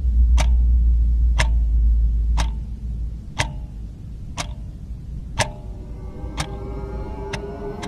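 Intro soundtrack of a clock ticking about once a second over a deep low drone. The drone fades out about two and a half seconds in, and sustained music notes swell in after about five seconds.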